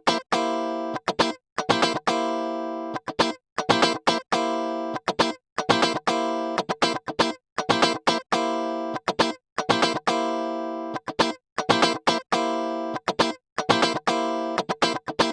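Plucked guitar riff played through an Arturia modulation effect plug-in. A short phrase of ringing notes repeats about every two seconds, with abrupt stops between the groups of notes.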